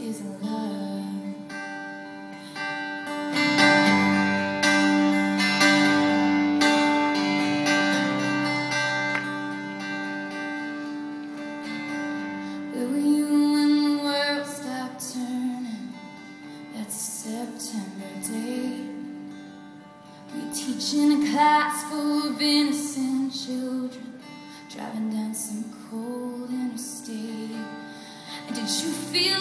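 A woman singing a slow country ballad live, accompanying herself on acoustic guitar.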